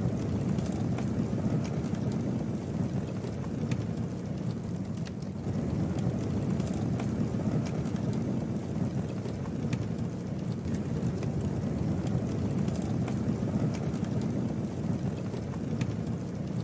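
Campfire burning: a steady low rumble with scattered sharp crackles and pops from the burning wood at irregular moments.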